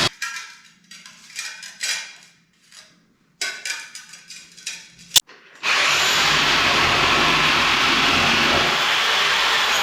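Power drill boring a hole for the new toilet's fixings. It stops, then about five seconds of scraping and handling sounds follow with a sharp click, and the drill starts again and runs steadily with a faint rising whine.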